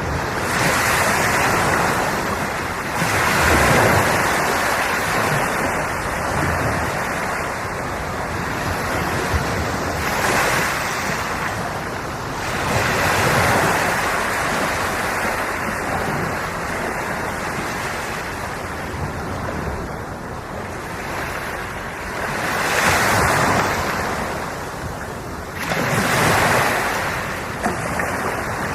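Ocean surf: waves breaking and washing up the shore, the rush swelling and easing every few seconds.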